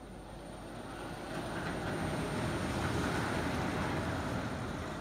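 Heavy steel chain rattling and scraping as it drags across the hard floor while an animatronic figure is hauled about on its overhead chains. The rumbling rattle swells for about two seconds, peaks midway and then eases.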